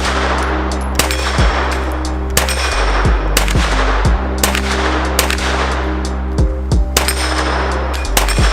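Kriss Vector submachine gun firing a string of single shots, about one or two a second and unevenly spaced, each with a short ring-out, over background music with steady low tones.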